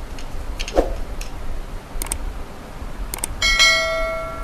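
A few short mouse-like clicks, then a bell chime about three and a half seconds in that rings and fades away: the sound effect of an on-screen subscribe-button and notification-bell animation.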